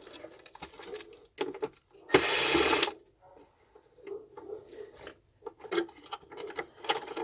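Clicks, knocks and rattles of plastic vacuum cleaner parts being handled and pried apart during disassembly, with one loud rasping burst of under a second about two seconds in.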